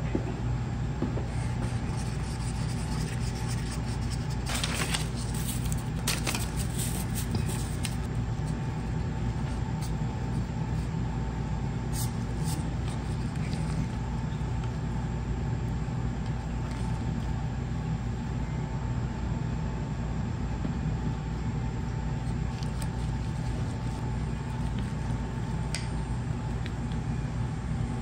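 A steady low hum with a faint constant tone over it. A few brief rustles and clicks come from gloved hands handling the veneer and paper between about five and eight seconds in.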